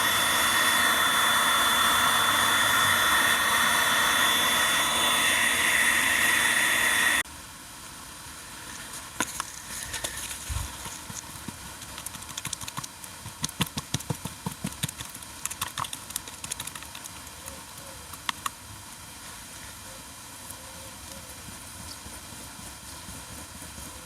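A loud, steady mechanical whirring with a high whine cuts off suddenly about seven seconds in. It is followed by a run of light clicks and taps.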